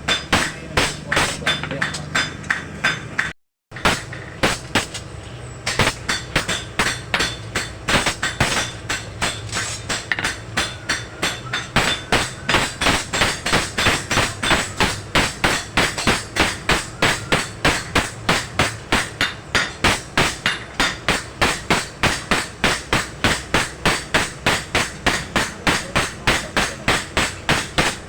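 Hand hammers striking steel on an anvil while forging a dagger blade, a steady rapid rhythm of about three blows a second. A brief break to silence about three and a half seconds in.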